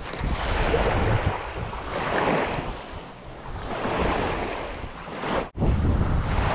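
Wind buffeting the microphone over the wash of sea waves, swelling and easing every couple of seconds. The sound cuts out for an instant about five and a half seconds in.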